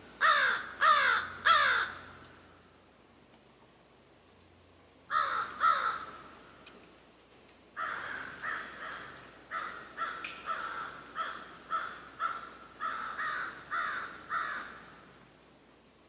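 A crow-family bird cawing. Three loud harsh caws come in the first two seconds and two more about five seconds in, then a longer run of quicker, quieter caws.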